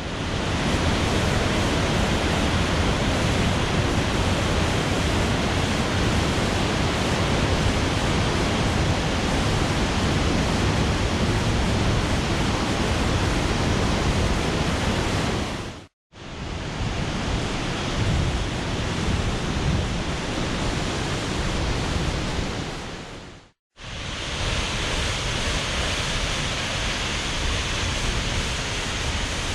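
Steady rushing of a large waterfall, an even wash of water noise with no lull. It is broken twice by a split-second dropout to silence, once past the middle and again later on.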